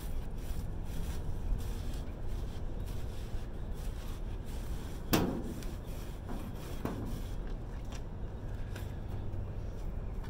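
Scrap and debris being handled in a dumpster: rubbing and scraping over a steady low rumble, with one sharp knock about five seconds in and a weaker one a couple of seconds later.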